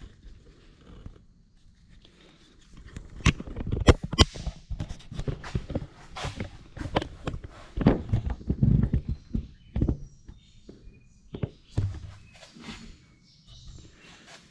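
Irregular footsteps, knocks and thuds with shuffling as a person clambers awkwardly into a car inside an enclosed trailer. Sharp knocks come about three and four seconds in, and there is a busy cluster of bumps a few seconds later.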